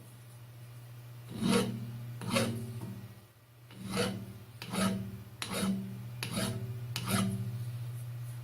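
Holbrook C8 toolroom lathe running with a steady hum while steel rasps against the spinning work in seven strokes, a little under one a second, ending near the end.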